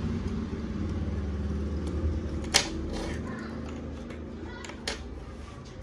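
Metal USB pen drive being fitted into a laptop's USB 3.0 port: a sharp click about two and a half seconds in and a smaller click near the end, with a few faint ticks, over a low steady hum.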